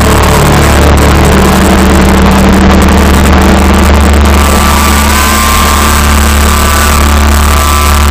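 Loud, overloaded live rock band sound through a phone's microphone: a steady deep drone from the stage amplifiers under a dense wash of noise, with held higher guitar tones coming in about five seconds in, one of them sliding up briefly.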